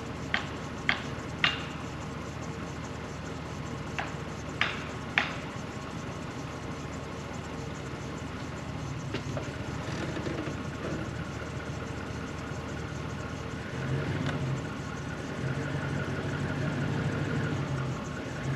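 An engine idling steadily, with six sharp knocks in the first five seconds or so. Near the end the engine grows louder and pulses unevenly.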